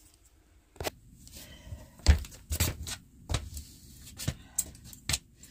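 Handling noise: a string of irregular knocks, clicks and dull thumps as things are moved about and set down, the loudest a thump about two seconds in.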